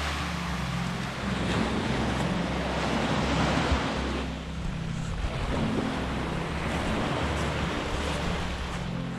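Small sea waves breaking and washing up a sandy shore: a steady rush of surf that swells and eases, with a short lull about four seconds in as a wave draws back.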